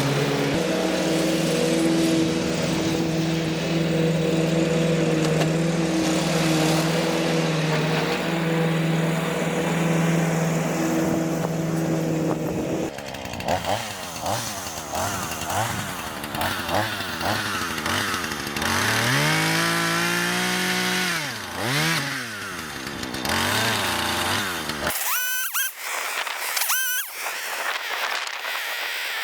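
Chainsaw engine running at a steady pitch for about the first half, then revving up and down in swoops. Near the end the sound changes abruptly and the low rumble drops away.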